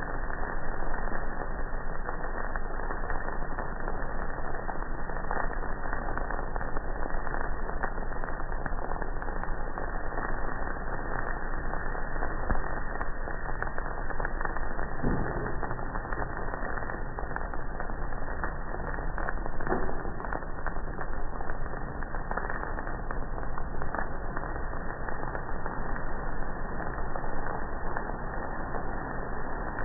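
Probat drum coffee roaster running with a steady rushing noise while freshly roasted beans are churned in its cooling tray, with frequent small crackles and clicks.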